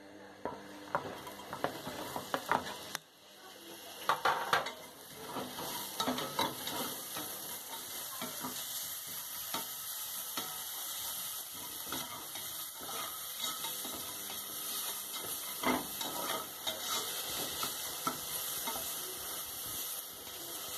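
Sliced onions sizzling as they fry in a pot, stirred and scraped with a slotted spatula. There are loud knocks against the pot about four seconds in, then a steady frying hiss with scraping strokes.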